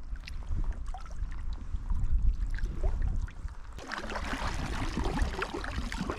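Kayak paddling: water lapping and trickling at the hull over a low rumble. About four seconds in, the sound changes to closer, brighter splashing and dripping as the wooden paddle blade dips and lifts out of the water.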